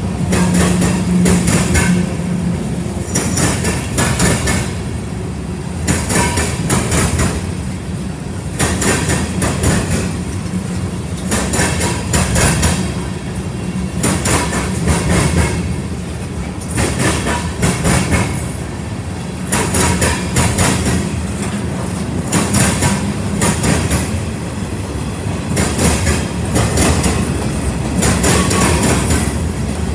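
Freight train of boxcars rolling past: steel wheels clicking over rail joints in clusters every second or two, over a steady rumble.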